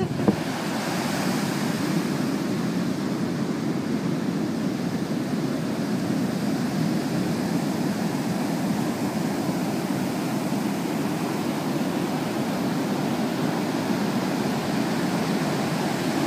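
Steady, unbroken rush of ocean surf, with no distinct calls or knocks.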